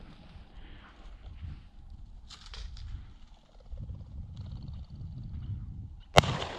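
A single shotgun shot about six seconds in, sharp and by far the loudest sound, over low, uneven rumbling noise.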